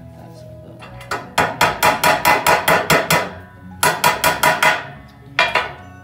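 A hammer striking steel in fast light taps, about six or seven a second, each with a short metallic ring. A run of a dozen or so strikes is followed by a shorter run and then one last tap near the end.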